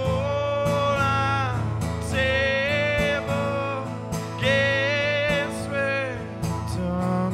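A man singing live over a strummed acoustic guitar: three long held vocal phrases, each falling away at the end, over steady strumming.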